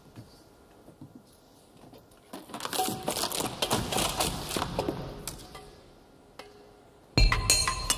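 A dense crackling, crunching clatter of many small clicks that lasts about three seconds. Near the end, loud music with heavy percussive hits starts abruptly.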